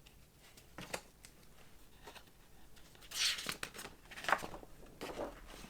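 Faint paper rustling with a few light handling clicks, as a picture book's page is turned; the loudest rustle comes about three seconds in.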